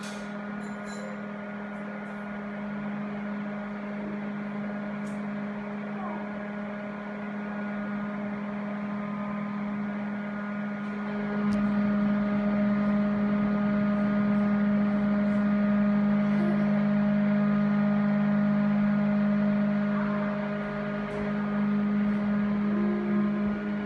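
KDK exhaust fan's electric motor running with a steady hum, growing louder about halfway through.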